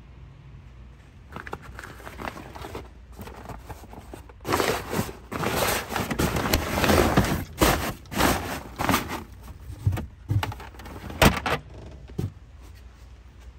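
Crinkling and rustling of a black nylon trunk cover and scraping of plastic trunk-floor panels being handled, with several sharp knocks and clicks. The handling is loudest from about four and a half seconds in until near the end.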